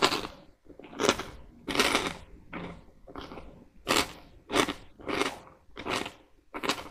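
A person chewing a mouthful of hard, very crunchy Poppets caramel cereal in milk: a run of crisp crunches, about one every two-thirds of a second.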